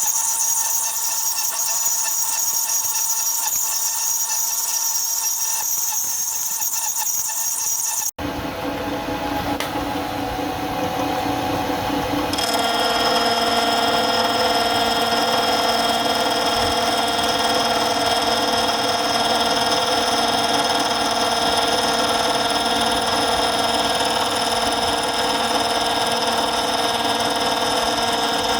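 Metalworking machine tool running with a steady whine. About 8 s in there is a cut, and about 12 s in a louder machine takes over, with a different set of steady whine tones.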